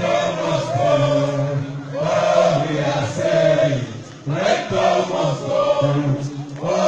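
A crowd of protesters chanting a song together in unison, in phrases of about two seconds with short breaks between them.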